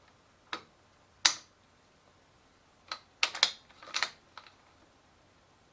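Sharp metallic clicks and clacks from an M1 Carbine's action as the operating slide is pulled back to cock the hammer: a single click, a louder clack a little over a second in, then a quick cluster of clicks about three to four and a half seconds in.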